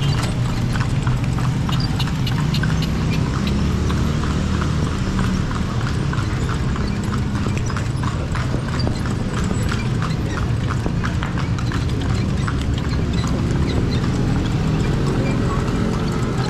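Hooves of a kalesa's carriage horse clip-clopping in a steady, even rhythm on the street, over a steady low rumble.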